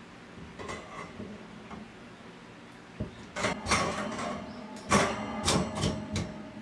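Chrome wire shelf rattling and clinking against its metal posts as it is handled and pressed into place during assembly: a few light clicks, then bursts of sharp metallic clatter from about three seconds in, loudest near five seconds.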